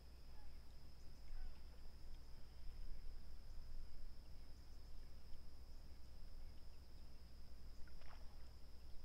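Lakeside dawn ambience: a steady high-pitched insect drone over a low rumble, with faint scattered bird chirps and one short, sharper chirp about eight seconds in.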